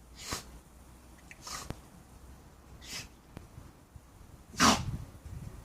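Dog sneezing repeatedly: four short sneezes about every second and a half, the last the loudest.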